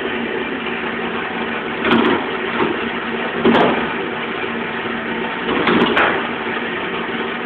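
Wood lathe running with a steady motor hum while a turning chisel cuts a long wooden spindle; the scrape of the tool on the wood swells louder in short surges about two, three and a half, and six seconds in.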